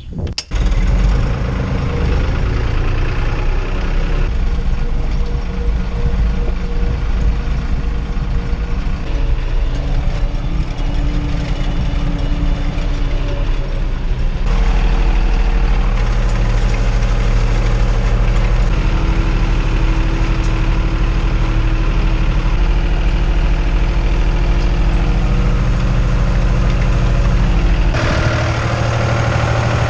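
Tractor diesel engine running steadily at working speed. The engine tone changes abruptly about halfway through and again near the end.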